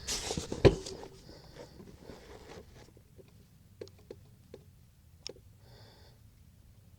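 Handling noise from a bolt-action .22 rifle being readied to fire: rustling and one sharp knock less than a second in, then a few faint scattered clicks and a short scrape.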